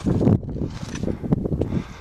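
Wind buffeting the camera microphone, loudest in a gust in the first half-second, with footsteps crunching on loose rock scree.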